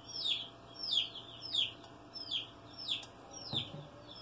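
A bird chirping over and over: about six short, high calls, each sliding downward in pitch, coming evenly about every two-thirds of a second.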